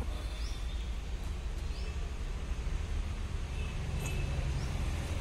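Outdoor background: a steady low rumble, with a few short high chirps from small birds.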